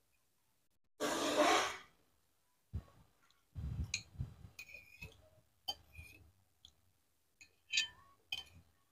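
Metal spoon clinking and scraping against a ceramic plate while a person eats soto, with chewing and mouth sounds. About a second in, a short loud breathy rush is the loudest sound, followed by several light clinks spaced out over the rest.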